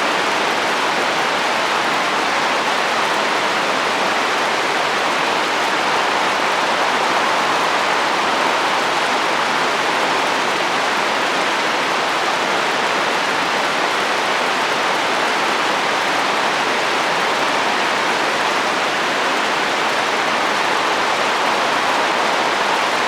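Steady rain falling on a roof in wind: an even, unbroken hiss with no single drops or gusts standing out.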